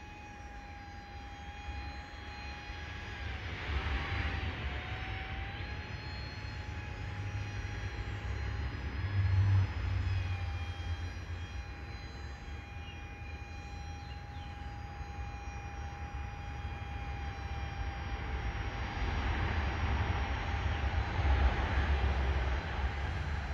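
RC paramotor's motor and propeller running: a steady high-pitched whine that dips briefly in pitch about four seconds in. A rushing propeller noise swells around the same moment and again near the end, over a low uneven rumble.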